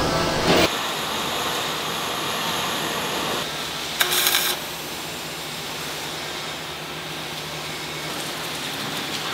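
A MIG welding torch lays a short tack weld on the steel plates of an excavator boom reinforcement about four seconds in, giving a half-second burst of arc noise. A steady machine hum runs underneath, with another brief loud noise near the start.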